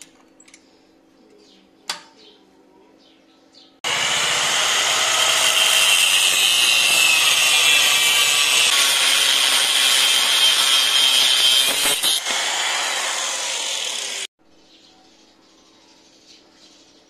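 Angle grinder with a thin cut-off disc slicing through a steel bolt. It starts about four seconds in, runs steadily for about ten seconds and stops abruptly.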